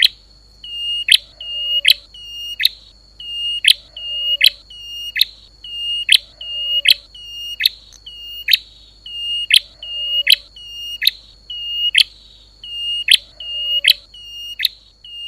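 Lure recording of a prinia (prenjak lumut / klawu) calling over and over: each call is a sharp downward chip followed by a short, level, high whistle, about one and a half calls a second, in an even rhythm. A thin steady high whine and a low hum run under it.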